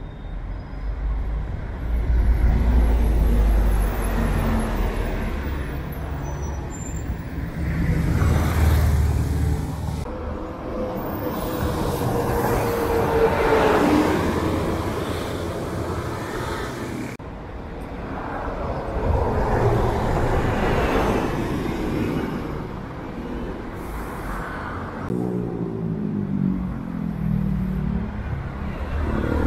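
Articulated city buses running past and through a bus stop, their diesel engines rumbling and swelling as they pull in and away, over road traffic. Hisses of air come and go, with a brief falling squeal about halfway through.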